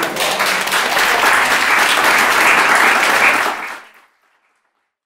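Audience applauding steadily, then fading out about four seconds in.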